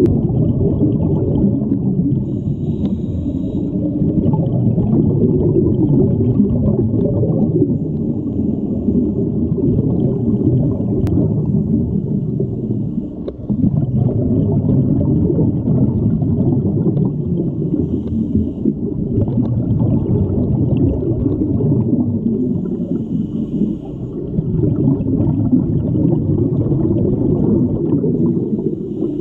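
Muffled underwater rumble and bubbling from scuba divers' exhaust bubbles, heard through a camera's waterproof housing. It is steady, with two brief lulls, a little under halfway and about four-fifths of the way through.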